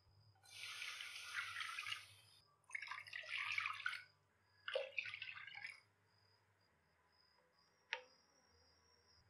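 Water poured into an empty nonstick pan in three splashing pours of about a second each. Near the end, a single light tap of a spoon against the pan as ghee is dropped in.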